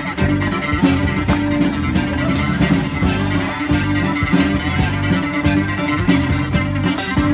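Live funk band playing: acoustic guitars strumming over a bass guitar line and a drum kit keeping a steady beat.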